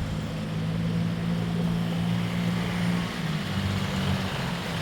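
An engine running at a steady speed, its drone wavering briefly about three seconds in.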